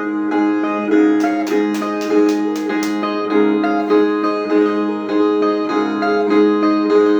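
Brazilian viola playing the instrumental interlude between sung stanzas of a repente cantoria: repeated plucked phrases over steady sustained low notes, with a quick run of sharp strokes about a second in.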